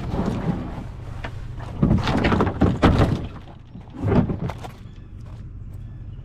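A series of knocks and thumps, loudest in a burst about two to three seconds in and again just after four seconds, over a steady low hum.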